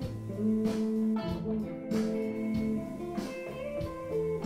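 Background music: plucked guitar playing held notes.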